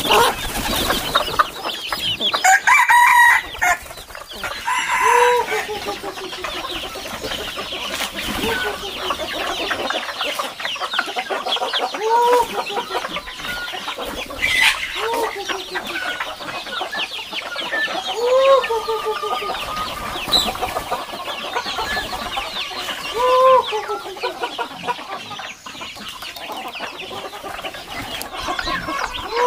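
A flock of chickens clucking continuously as they feed, with roosters crowing now and then.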